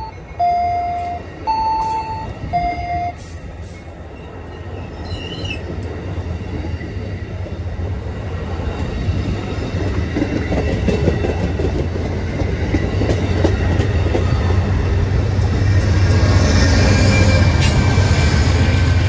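Amtrak passenger train of stainless-steel coaches rolling past, the wheel and rail noise growing steadily louder, with a brief wheel squeal about five seconds in. Near the end the train's GE Genesis diesel locomotive goes by, and its engine drone is the loudest part. In the first three seconds an electronic beeping alternates between a lower and a higher note.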